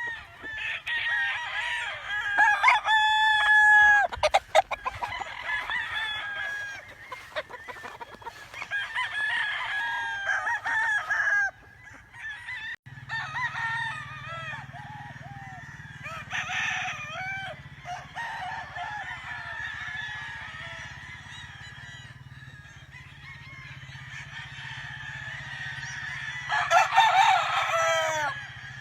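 Giro Grey gamefowl roosters crowing again and again, several birds overlapping, with clucking in between; the loudest crows come about three seconds in and again near the end.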